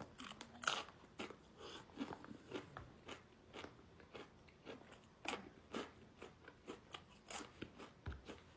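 A person biting and chewing crunchy tortilla chips close to the microphone: a loud crunch about a second in, then a run of chewing crunches at about two or three a second.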